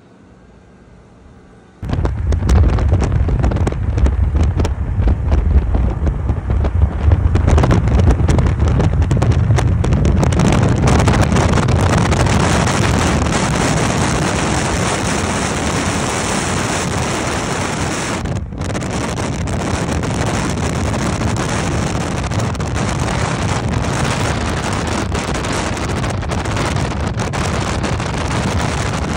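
Wind rushing and buffeting on a phone microphone held out of a moving car's window, mixed with road and tyre noise at highway speed. It starts abruptly about two seconds in, after a much quieter start.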